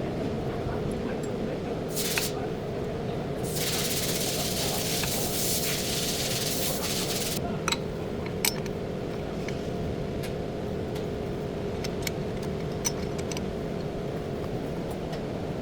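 Hissing spray during front brake work, in two bursts: a short one about two seconds in and a longer one of about four seconds. Scattered light clicks and taps follow, over a steady low background hum.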